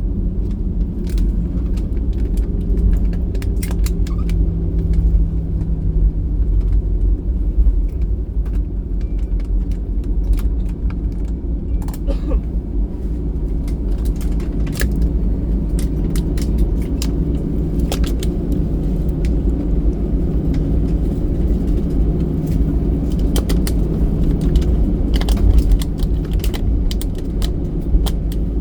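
Airbus A320-214 cabin noise during landing: a steady low rumble with the CFM56 engines' hum, and frequent light rattling clicks from the cabin fittings.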